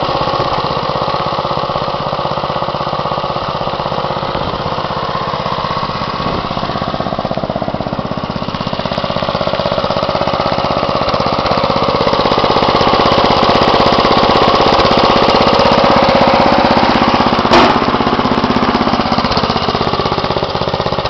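The 11 hp Briggs & Stratton single-cylinder petrol engine of a Wheel Horse 211-3 garden tractor running steadily with a fast pulsing beat, growing a little louder around the middle. A single sharp knock comes about three-quarters of the way through.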